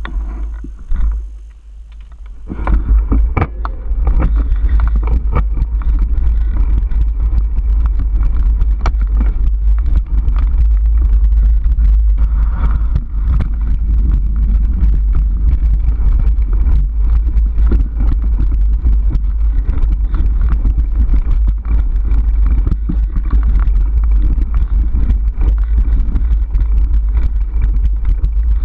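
Mountain bike ridden over a rough dirt singletrack, heard through a camera riding on the bike: a heavy, steady low rumble of wind and trail vibration on the microphone with a constant clatter of knocks and rattles from the bumps. It gets loud about two and a half seconds in.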